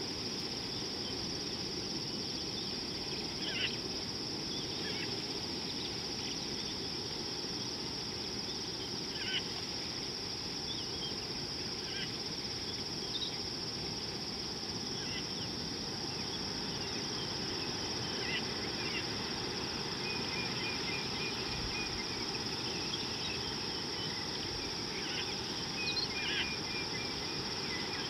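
Steady, high-pitched insect chorus droning without a break, with scattered short bird chirps and a couple of brief twittering trills in the second half, over even low background noise.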